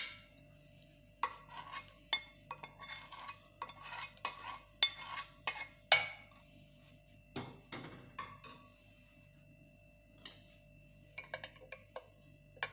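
A metal spoon clinking and scraping against a saucepan and a glass in a run of light, irregular clinks, then a pause of a few seconds, then more clinks near the end.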